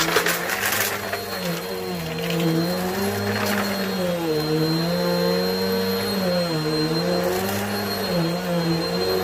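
Vacuum cleaner running, its motor pitch dipping and rising again and again as the nozzle loads and unloads on the floor. Grit and small debris rattle up the nozzle in the first second, and briefly again around the middle and near the end.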